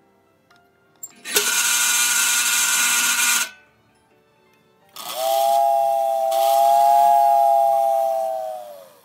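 American Flyer locomotive's motor-driven tender whistle blown twice. The first blast, about a second in, is breathy and hissing. The second, from about halfway, is a steady two-note whistle whose pitch sags and dies away as the motor spins down.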